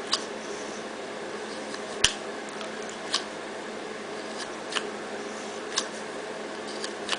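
Neck knife clicking in and out of a moulded kydex sheath: about six sharp plastic clicks spaced a second or so apart, the loudest about two seconds in, over a steady low hum.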